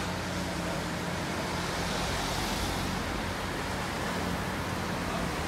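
Liebherr 954C high-reach demolition excavator at work, its diesel engine a steady low hum under a constant hiss of site noise. The hiss swells briefly a little past the middle.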